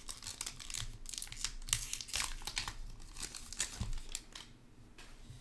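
Foil wrapper of a trading-card pack crinkling and tearing as it is pulled open by hand: a flurry of crackles that dies away about four seconds in.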